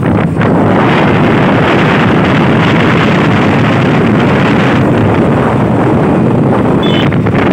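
Loud, steady wind buffeting the microphone of a camera carried on a moving vehicle along a road.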